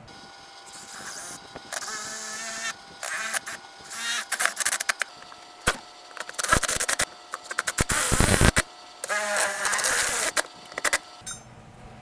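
Milwaukee M18 cordless driver running in a series of short stop-start bursts, its motor whine rising and falling, as it drives pan head self-tapping screws into the cab's metal floor.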